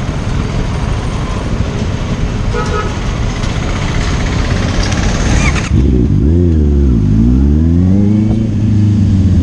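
Street traffic noise with a short horn toot about two and a half seconds in; then, a little past halfway, the Honda CBR650R's inline-four engine comes in loud, its note dipping and climbing again before holding steady.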